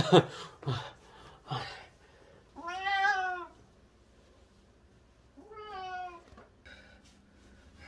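Wet Bengal cat, held after its bath, meowing twice: a long meow that rises and falls about three seconds in, and a shorter meow falling in pitch near six seconds.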